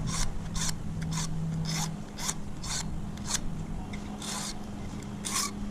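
Hand file rasping across a key blank in short, repeated strokes, about two to three a second with a brief pause midway: the impressioned key's cut is being filed down where the lock left a mark.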